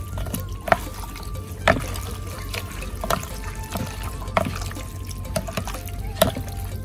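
Wet squelching of raw duck offal being stirred with chopsticks and a spoon in a plastic bowl as it is mixed with seasoning, with a few sharp clicks of the utensils.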